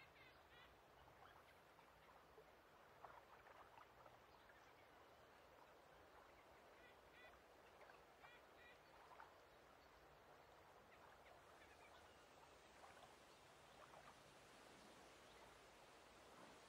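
Faint lake ambience: ducks quacking in short calls now and then over a soft, steady hiss.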